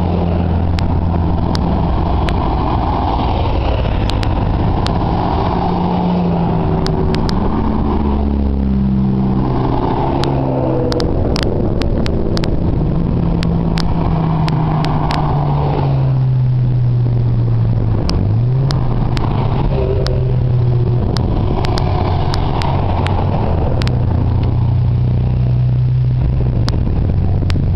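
A string of Ferrari sports cars driving past one after another, their engines running and revving, with the pitch shifting as they go. A rush of sound swells and fades every few seconds as each car passes.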